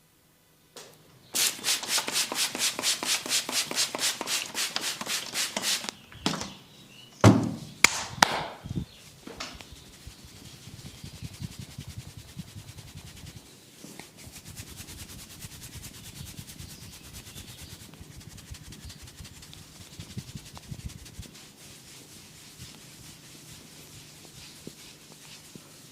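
Hands rubbing and scratching in a head and hair massage: loud, even rubbing strokes at about four a second for several seconds, then a few sharp knocks, then quicker, fainter scratching.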